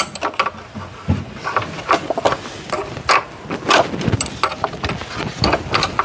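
Irregular metallic clicks and clinks of a wrench working the bolts on a motorcycle's front fork.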